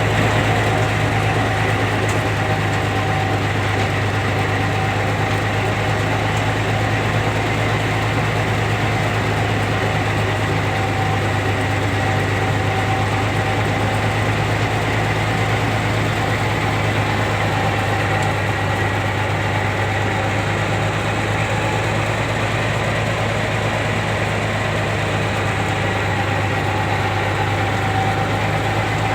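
Caterpillar D6D bulldozer's diesel engine running steadily at an unchanging speed, with a steady low hum.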